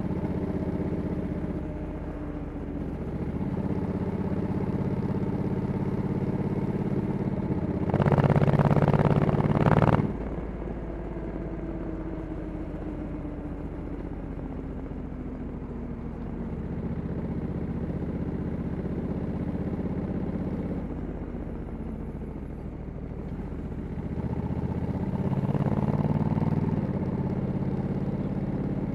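Stock 2021 Honda Africa Twin 1100 DCT's parallel-twin engine running on the road, heard from the rider's seat. A loud rush of noise lasts about two seconds some eight seconds in. The engine note then falls slowly as the bike slows and rises again near the end as it speeds up.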